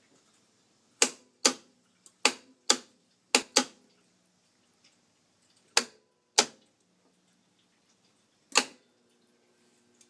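Electrical contactor (Allen-Bradley motor starter) clacking in and out as the siren control box's push buttons are worked: nine sharp clacks, loosely in pairs, each dying away quickly, with a faint low hum between some of them.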